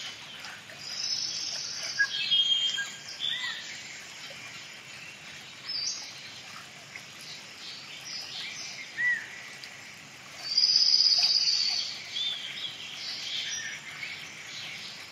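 Several birds singing and chirping, a mix of short high calls and whistles over a faint hiss, with the loudest, a long high trill, about ten and a half seconds in.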